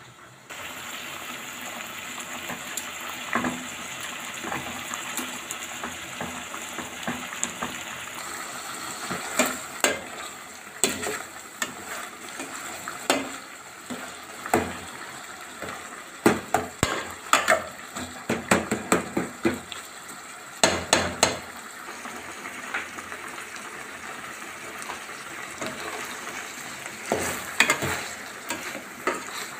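Ground meat and onions sizzling in an aluminium pot while a spoon stirs them, scraping and clattering against the pot again and again. The sizzle starts about half a second in.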